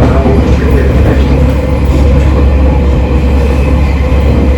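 Running noise heard from inside a JR 253 series express train car at speed: a steady low rumble of wheels on rail with a faint steady hum.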